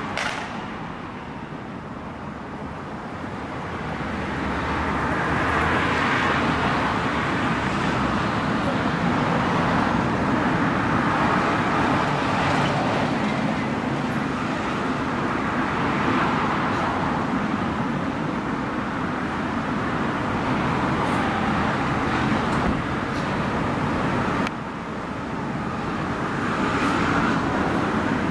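Road traffic noise: a steady hiss of passing cars that swells and fades every few seconds, dropping suddenly about three-quarters of the way through.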